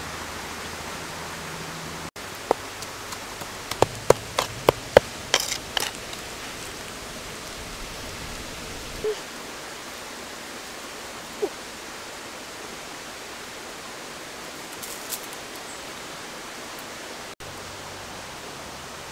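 Steady outdoor hiss with a quick run of about a dozen sharp snaps and cracks between about two and six seconds in, then two faint short chirps.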